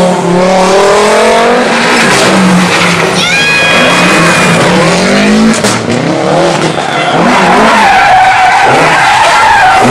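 Rally car engines run hard at high revs, the pitch climbing and dropping through gear changes. A brief high squeal comes a little over three seconds in.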